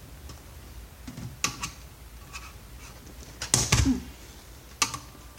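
Sharp clicks and clacks of metal and plastic monitor parts being handled and pried apart with a screwdriver: a few separate knocks, the loudest cluster about three and a half seconds in.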